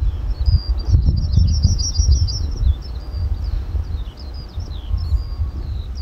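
Small birds singing: a rapid high trill in the first couple of seconds, then short high chirps. Under them runs the low rumble of wind buffeting the microphone, the loudest sound, easing off about two-thirds of the way through.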